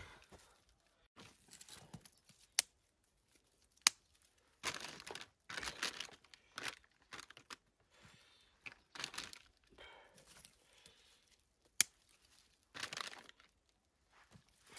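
Dry twigs snapping with three sharp cracks, between bouts of crinkling and rustling as tinder and sticks are packed into a small fire lay.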